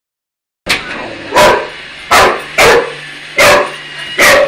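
Boxer dog barking, a run of about six loud, sharp barks roughly one every 0.7 seconds, starting under a second in.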